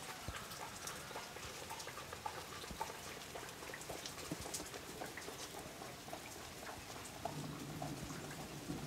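Faint outdoor ambience full of small irregular ticks and clicks, like drips or light tapping. A low steady hum comes in near the end.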